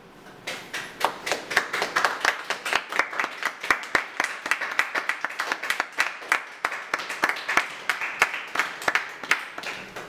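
Audience clapping. It starts about half a second in and stops near the end, with separate claps standing out, as from a small group.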